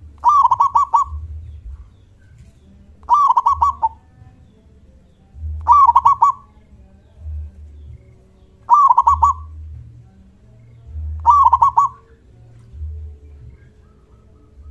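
Zebra dove (perkutut) singing its loud 'kung' call: five phrases about every two and a half seconds, each a quick run of rolling coos, over a faint low rumble.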